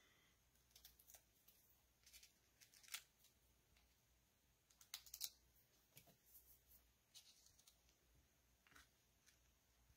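Near silence with faint scattered clicks and rustles of small paper pieces being handled on a craft mat.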